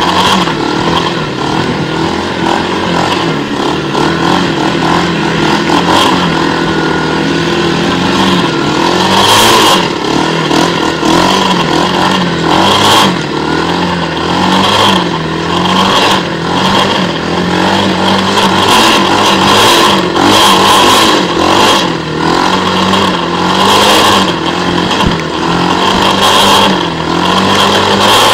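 Quad bike engine running, its revs rising and falling again and again.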